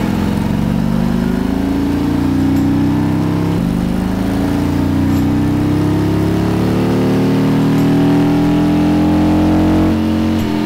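Stock Harley-Davidson Milwaukee-Eight 114 V-twin on a chassis dyno, making a baseline full-throttle pull: the engine note climbs in pitch, falls back once about three and a half seconds in, then climbs steadily for several seconds more before dropping near the end.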